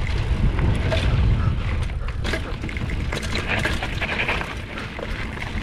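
Mountain bike ridden on a dirt trail: heavy wind buffeting the microphone over tyre crunch and small clicks and rattles from the bike.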